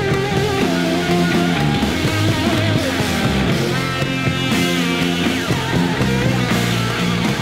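Heavy 1970s blues-rock studio recording: a band playing with electric guitar, bass and drums, its loudness holding steady.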